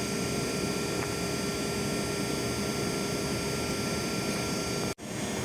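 Steady machine running with a constant hum and a few high whining tones, cutting out for an instant about five seconds in.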